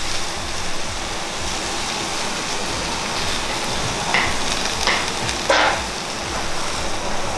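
Wet leafy greens sizzling in a wok over a gas burner, a steady hiss, with a few short clatters a little past halfway.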